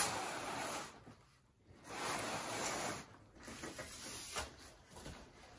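Cardboard shipping box and its packaging rustling and scraping as a large flat board is slid out, in two noisy stretches of about a second each, followed by quieter handling noises.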